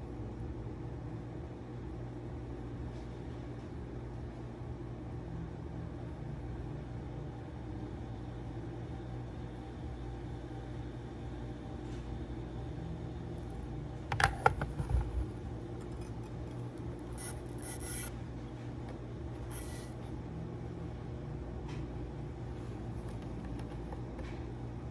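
Handling of tools and parts at a soldering bench over a steady background hum: a quick cluster of clicks and knocks about fourteen seconds in, then short hisses a few seconds later.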